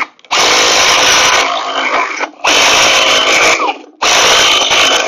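Slow-speed power ratchet with a 3/4 socket running down the quick-release bolts on bunker board clips. It runs in three bursts of about a second each, stopping and starting again as each bolt is snugged.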